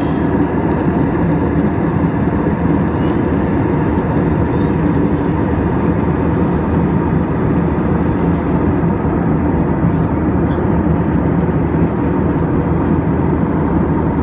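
Steady cabin roar of an Airbus A320 airliner in flight, engine and airflow noise heard from inside the cabin, even and unchanging throughout.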